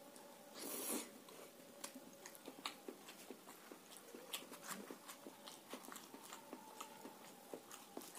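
Close-miked eating sounds: a loud bite into a curry-coated boiled egg about a second in, then quiet wet chewing with many small clicks of the mouth.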